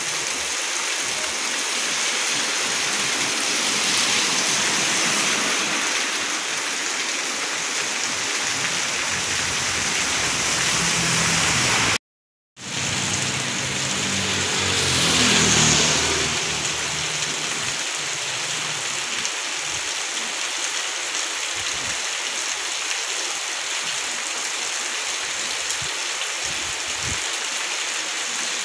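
Very heavy rain pouring down onto a road and roofs, a steady hiss of falling water. The sound drops out for about half a second near the middle, and a few seconds later a motorbike passes through the downpour, rising and fading.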